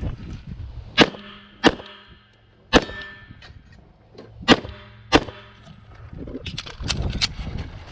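Five pistol shots at an uneven pace, several of them followed by a metallic ring from hits on steel targets. Near the end comes a run of lighter, quicker clicks and knocks.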